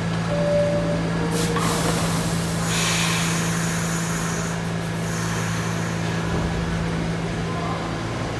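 R68 subway car standing at the platform with a steady low hum from its equipment, and compressed air hissing from the brakes about 1.5 s in and again, longer and louder, from about 3 to 4.5 s in, as the brakes release for departure.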